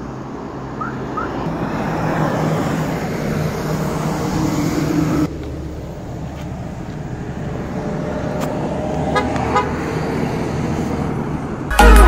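Road and engine noise heard inside a moving car's cabin on a highway, with a vehicle horn tooting in the second half.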